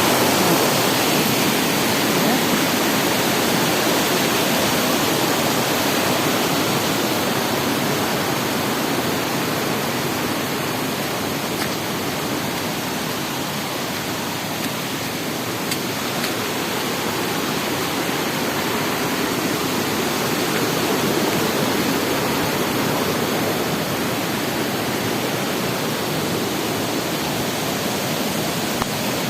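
Steady rushing noise of heavy typhoon rain and running floodwater, dipping a little in the middle.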